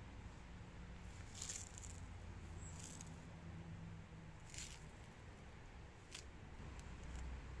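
Rubber seal strip being unrolled and pressed down by hand along the edge of a pop-top roof panel: faint, with about four short scratchy rustles roughly every second and a half.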